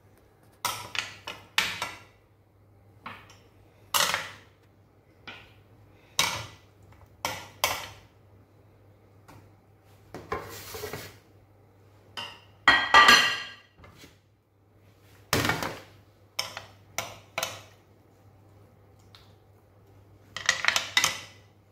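A kitchen utensil clinking and knocking against a metal grill pan and a glass baking dish as roasted coquelet pieces are moved from one to the other. The knocks are irregular, with a quick run of ringing clinks about thirteen seconds in and another near the end.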